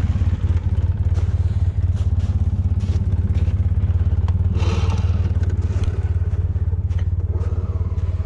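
2005 Polaris Sportsman 700 EFI ATV's twin-cylinder engine idling steadily with an even low pulse, and a short metallic clatter about five seconds in as the winch hook is freed from the front bumper.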